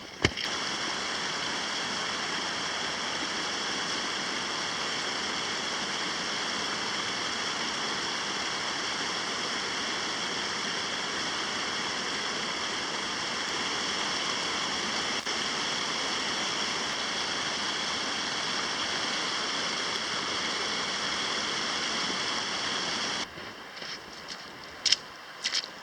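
Steady rush of flowing stream water. It cuts off suddenly about 23 seconds in, and a few short crunching steps follow near the end.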